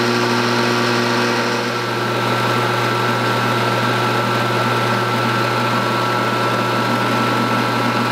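Craftsman 4x36-inch belt and 6-inch disc bench sander running steadily under no load: a strong motor hum with a steady high whine and belt rush. The motor runs smoothly and at full speed, working again after a $9 capacitor replacement.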